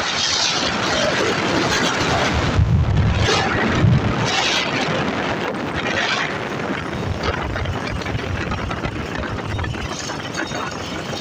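Wind buffeting the microphone on a moving motorcycle, over steady engine and road noise. The gusts are strongest in the first few seconds and ease off after that.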